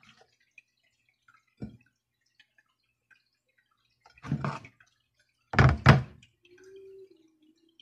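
Ceramic serving platter knocking against a plastic cutting board as it is handled and shifted: a light tap, then a short clatter, then two louder knocks about a second later.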